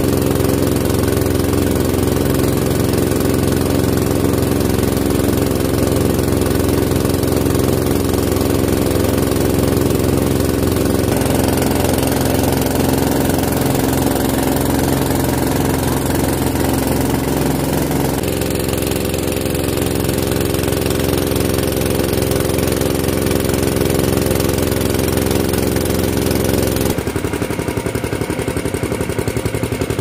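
The engine of a motorized river raft (perahu getek) running steadily under way, its note shifting a few times.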